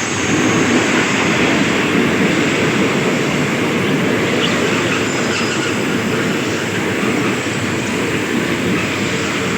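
Diesel-hauled passenger train rolling past at the station, a steady loud rumble and rattle of wheels and carriages on the rails.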